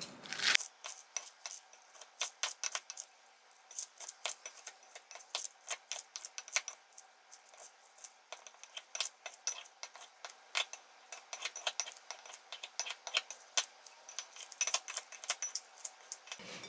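Kitchen scissors snipping chopped salad of cooked chicken breast, lettuce and bell pepper in a glass bowl: an irregular run of crisp snips and clicks, a couple or more each second.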